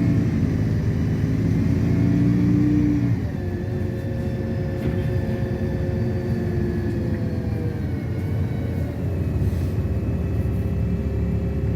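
LiAZ-6213.65 articulated bus running and pulling away, heard from inside the cabin: a steady engine rumble with whining tones that shift in pitch, stepping down about three seconds in and again around eight seconds, like gear changes while it accelerates.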